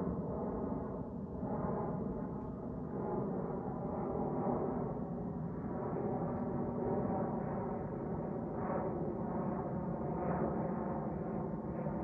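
Boeing C-17A Globemaster III's four turbofan jet engines on landing approach, passing low overhead: a steady jet rumble with several held tones running through it.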